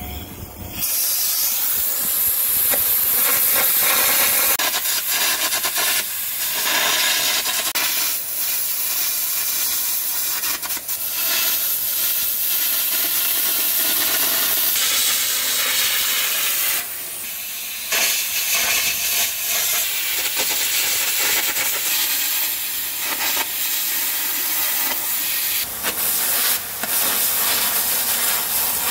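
Carbon air arc gouging a steel tooth adapter off an excavator bucket: the arc and compressed-air jet hiss loudly as molten metal is blown away. It starts about a second in and breaks off once, briefly, about two-thirds of the way through.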